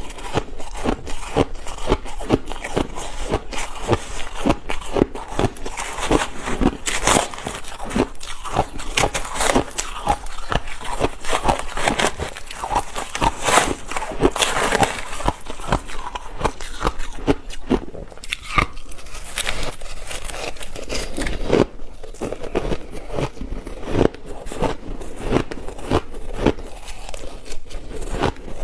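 Ice being bitten and chewed: a dense, continuous run of crunches and crackles.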